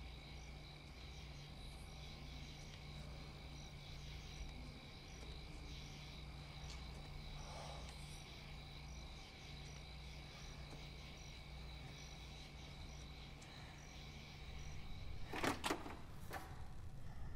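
Crickets chirping faintly at night over a low steady hum, with a few sharp knocks or clicks near the end.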